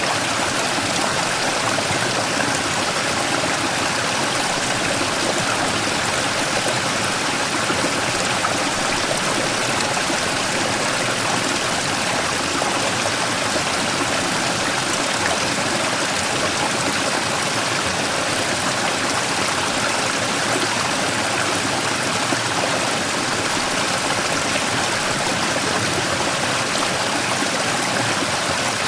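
Mountain stream running steadily over and around a large rock, a continuous rush of flowing water.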